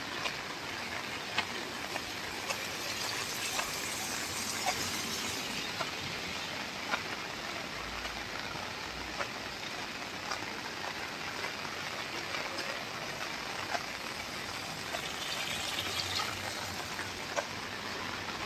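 Steady rain falling, an even hiss with scattered sharp drop taps every second or two.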